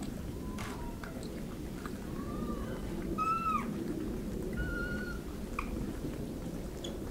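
Japanese macaques in a tight huddle giving a few short, soft coo calls: brief pitched calls, one arching up and falling away and one wavering, with a few light clicks over a low steady background rumble.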